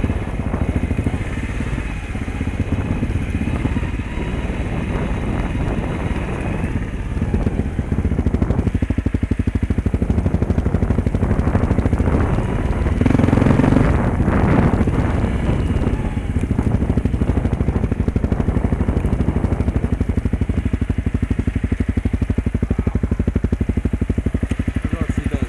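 Dirt bike engine running steadily as the bike rides along a dirt track, getting louder for a couple of seconds about halfway through.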